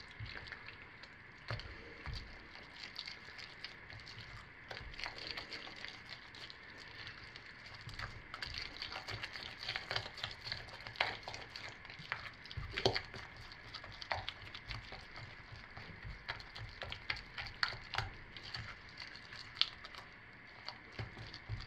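Silicone spatula stirring and folding thick hot process soap batter in a crock-pot insert: a steady run of small irregular clicks, scrapes and sticky crackles, a little busier from about eight seconds in.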